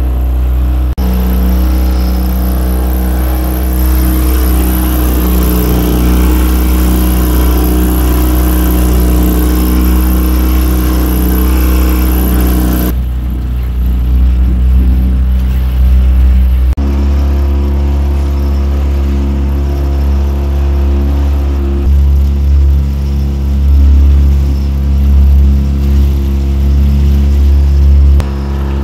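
A small fishing boat's outboard motor running steadily underway, with a low rumble and a hiss of water and wind. The engine note changes abruptly twice, about halfway through and again a few seconds later.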